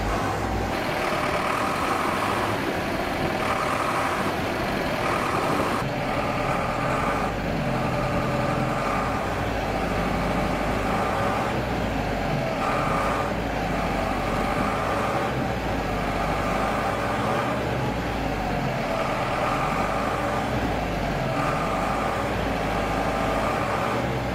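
Van engine running, its low note rising and falling gently as the throttle is worked, with a higher tone coming and going about every one and a half seconds.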